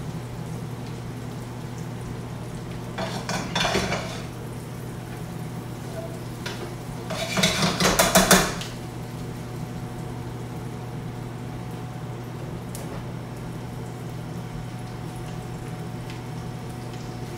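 Vegetables being turned with tongs in a frying pan on a gas range: the pan and utensils clatter in two short spells, about three and seven seconds in, the second louder, over a steady low hum.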